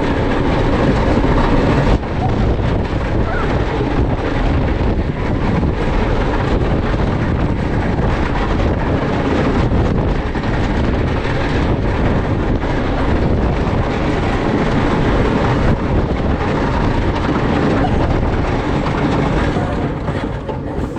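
Wooden roller coaster train running along its track: a loud, steady rumble with rattling clatter from the wheels on the wooden structure, and wind buffeting the microphone. It eases off near the end as the train slows.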